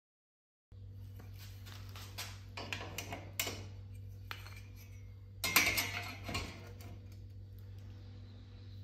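Light clinks, taps and knocks of a ruler and marker pen being handled against a metal rack frame, with the loudest clatter about halfway through, over a steady low hum. The sound starts just under a second in after a moment of silence.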